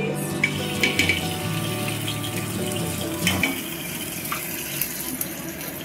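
Food sizzling in oil in a kadai, a steady hiss, with a metal spoon clinking against steel containers a few times.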